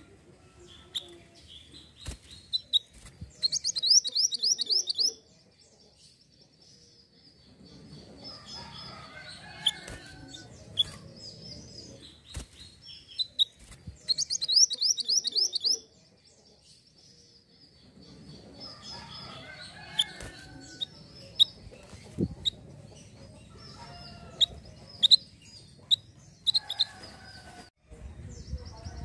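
Male minivet (mantenan) calling: scattered high chirps and two loud, rapid, high-pitched trills of about a second and a half each, one about three seconds in and another about halfway through, with a third starting near the end.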